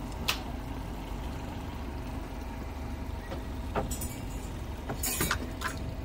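A steady low engine rumble, as of a motor running at idle, with a sharp click just after the start and a few short knocks and clicks about four and five seconds in.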